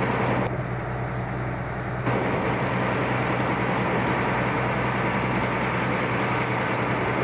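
Sightseeing boat's engine running steadily, a low hum under an even rushing of wind and water.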